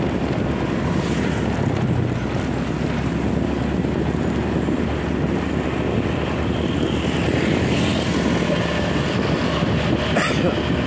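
Steady rush of wind on the microphone over a motorbike's running engine while riding along a street, with a brief click about ten seconds in.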